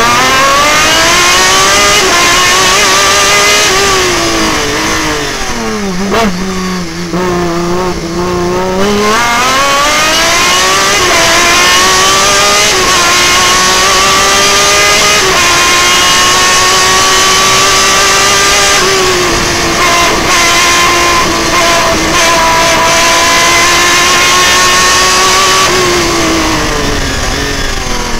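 The BMW engine of a Breda sports-prototype race car, heard from its open cockpit, is driven hard up through the gears. It drops to low revs for a slow corner about six seconds in, then accelerates again with several quick upshifts and holds high revs for a long stretch. It eases off near the end.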